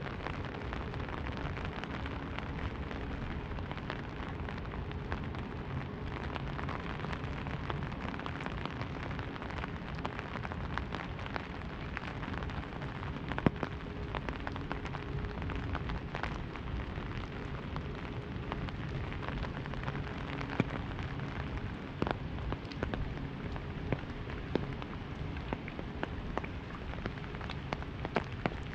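Rain drumming on an umbrella held overhead: a steady dense hiss of drops with many small ticks and an occasional louder single drop hitting the canopy.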